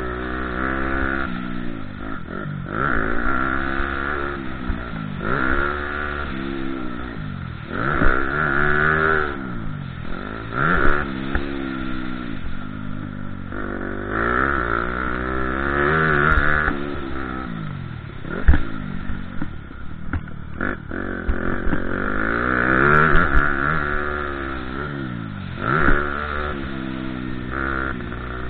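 Dirt bike engine being ridden hard on a motocross track, revving up and dropping back about a dozen times as the rider opens the throttle, shifts and backs off for corners. Steady wind rush runs underneath, with a sharp knock about two-thirds through.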